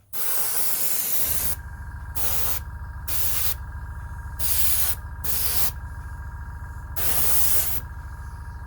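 Airbrush spraying weathering wash: one longer hiss at first, then about five short bursts with pauses between them. A steady low hum comes in about a second in and runs underneath.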